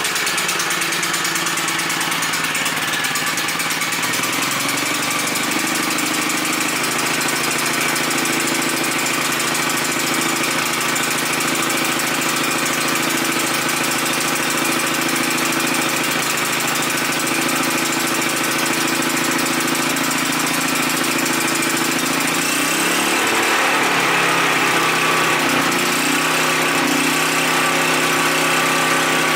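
Champion 3500-watt dual-fuel portable generator's single-cylinder four-stroke engine running at a steady speed soon after its first start, warming up with the choke pulled out. About 22 seconds in its note wavers and gets slightly louder, then settles again.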